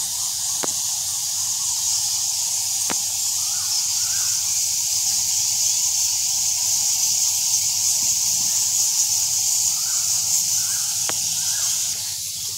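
Steady, dense high-pitched hiss of chittering from a huge roosting colony of Geoffroy's rousette fruit bats in a cave pit, with a few separate squeaks standing out; it drops somewhat near the end.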